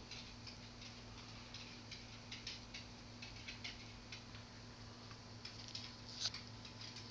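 Vintage Creators Inc rain lamp running: drops of oil running down its strands and falling into the basin make a faint, irregular patter of small ticks, several a second. A low steady hum runs underneath.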